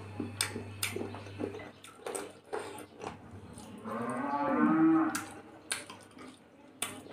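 A person eating with his hands: wet chewing and lip-smacking clicks. About four seconds in comes a loud, low, drawn-out moan lasting just over a second, rising then falling in pitch.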